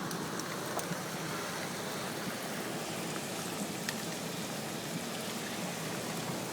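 Steady rushing of floodwater, an even watery noise with no break.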